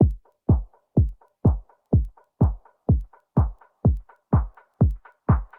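Bass-boosted electronic dance music, opening on a deep kick drum that sweeps down in pitch on every hit, about two beats a second. Lighter short percussion hits fall between the kicks, and there are no vocals.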